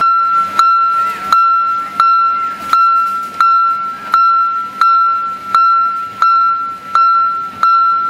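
Miniature Japanese-style railroad crossing warning bell ringing "kan kan" in a steady, even rhythm, a little under one and a half dings a second, each a clear ringing tone.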